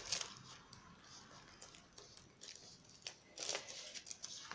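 Faint rustling and sliding of paper sheets on a tabletop as a sketch and carbon paper are shifted into position by hand, with a few short scrapes about three and a half seconds in.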